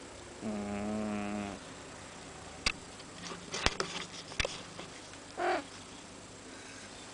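American Shorthair cat snoring: one long buzzy snore about half a second in, lasting about a second, and a shorter breath sound about five and a half seconds in. A few sharp clicks come in between.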